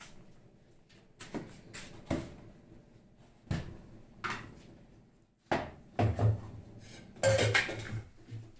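Steel kitchen utensils and containers knocking and clinking as they are handled and set down on a stone counter and gas stove: a string of separate knocks about a second apart, with a louder cluster of clatter near the end.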